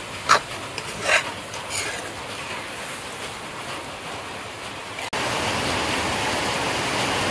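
Vegetables frying in a kadhai over a wood fire, a low sizzle with a few clinks of the stirring spoon in the first two seconds. About five seconds in it cuts abruptly to the louder, steady hiss of heavy rain.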